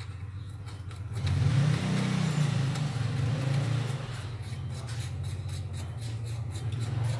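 A motor vehicle engine running with a steady low hum that swells and rises briefly about two seconds in. A run of light clicks follows in the second half.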